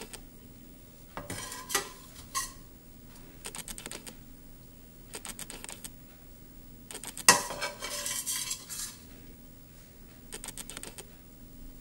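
Metal spatula scraping and clinking against a stainless steel frying pan in short bursts as food is scooped out onto a plate. The loudest clank comes about seven seconds in, followed by a second of scraping.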